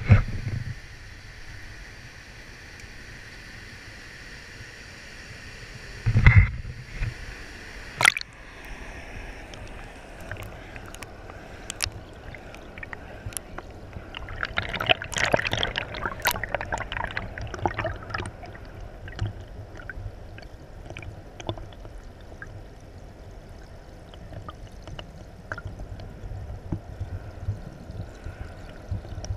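Rushing river water below a dam, heard muffled through an action camera's waterproof housing as a steady rush. There are heavy knocks about six and eight seconds in as the camera is put under. After that comes the underwater crackling and bubbling of the current, busiest in the middle.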